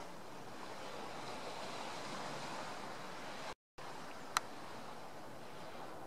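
Steady wash of distant sea surf and wind. A little past halfway it drops out briefly to silence, then a single sharp click follows.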